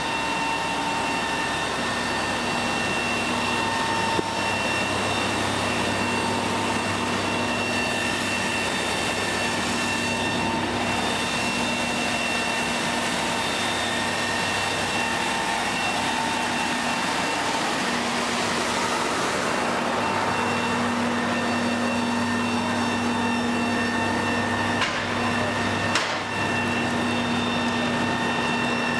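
Fire engine's engine driving its water pump, a steady mechanical drone with a constant whine over it.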